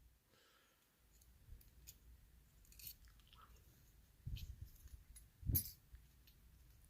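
Faint clicks and taps of small metal parts being handled as a pin tumbler challenge lock is taken apart, with a soft knock about four seconds in and a louder one about a second later.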